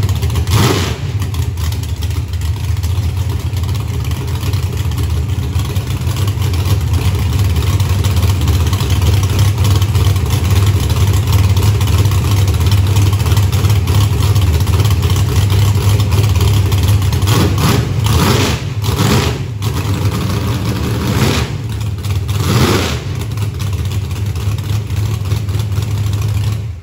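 Drag car's engine idling steadily and loud, blipped a few times in the second half with quick rises and falls in revs. It runs smoothly without knocking or banging. The sound cuts off abruptly at the end.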